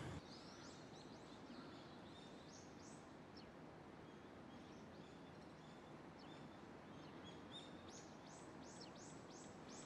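Faint birds chirping over quiet outdoor background noise, with a quick run of short falling chirps near the end.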